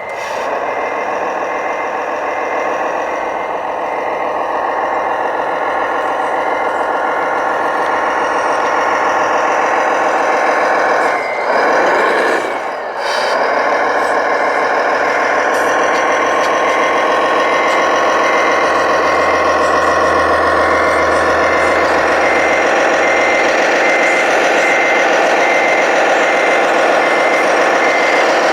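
RC trucks' sound modules playing a steady simulated diesel engine, with a reversing beeper beeping regularly throughout. About eleven seconds in the engine sound dips briefly, with a swoop in pitch, before running steadily again.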